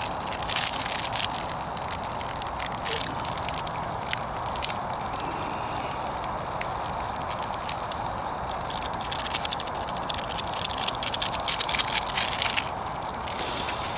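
Small wood fire crackling in a portable wood-burning camp stove, with a steady hiss under it and thicker runs of sharp crackles about a second in and again from about nine to twelve seconds in.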